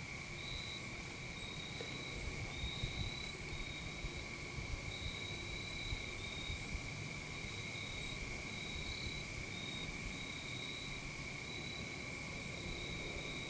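Insects chorusing: a steady high-pitched drone, with a second, higher trill that starts and stops every second or so.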